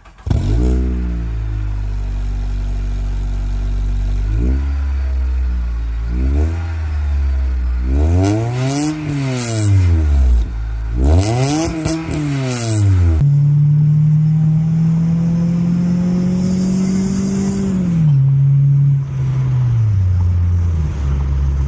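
Acura RSX's K20 inline-four, fitted with a Yonaka catback and no catalytic converter, starting up and settling to idle. It is revved several times, the two biggest blips rising and falling around the middle. After an abrupt change it holds a higher steady idle that drops twice in steps near the end.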